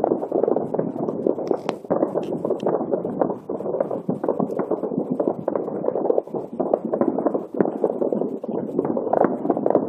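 Many distant fireworks going off at once: a dense, continuous patter of overlapping muffled bangs and pops, with no single burst standing out.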